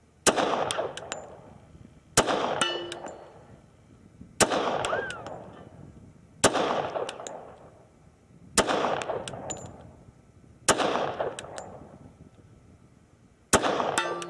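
Heckler & Koch Mark 23 .45 ACP pistol fired seven times in slow aimed fire, about two seconds apart with a slightly longer pause before the last shot. Each shot echoes away across the range, and short metallic clinks follow several of the shots.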